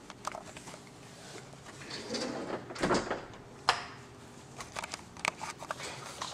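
Footsteps and camera handling noise as someone walks across a hard floor carrying the camera: scattered soft knocks and clicks, with a louder rustling thump about three seconds in and a sharp knock just after.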